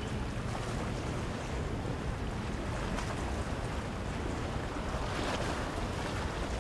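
Crescent 120-foot motor yacht passing at low speed: a steady low engine drone under the wash of water along its hull, with wind on the microphone.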